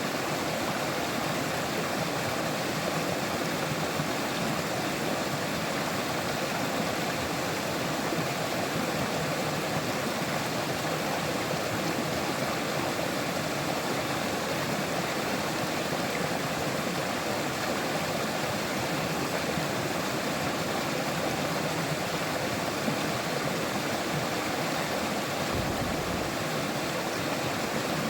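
River water flowing in a steady, even rush with no let-up.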